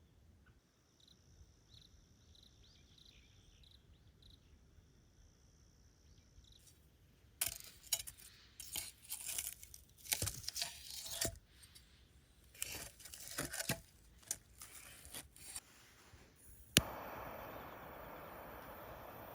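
Quiet for several seconds, then plastic or paper packaging crinkling and tearing in irregular bursts as it is handled. Near the end comes one sharp click, followed by a steady hiss.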